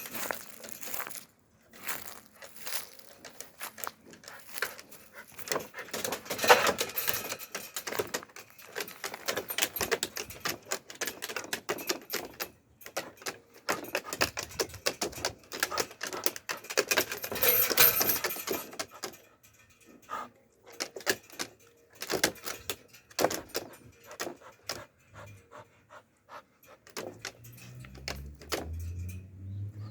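A dog panting and moving about, with metallic jingling and irregular clicks and scrapes; the panting and jingling are loudest about six seconds in and again past halfway.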